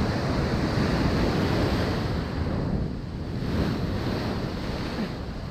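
Ocean surf washing on a beach, with wind rumbling on the microphone; the wash eases about three seconds in, then swells again.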